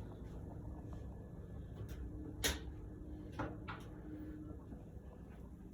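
A few short light knocks and clicks, the loudest about halfway through, over a low steady background hum.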